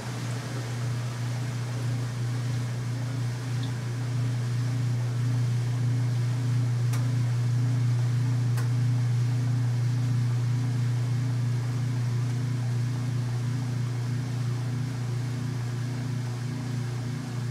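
Kenmore 800 Series top-load washing machine running with a steady low motor hum, swelling slightly in the first few seconds and then holding even, with two faint clicks about midway.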